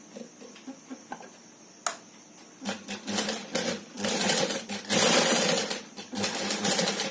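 Industrial sewing machine stitching a seam through layered bag fabric, running in several short bursts that start and stop, beginning about two and a half seconds in after a few small handling clicks.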